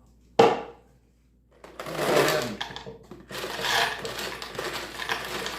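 A single sharp knock about half a second in, then from about three seconds a continuous rattle of small metal sheetrock screws being poured into a wooden holder on the workbench.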